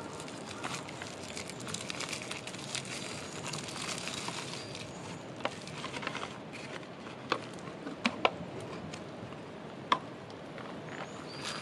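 Wood fire crackling in a campfire pit, a steady crackle with sharp single pops now and then, the loudest about eight and ten seconds in.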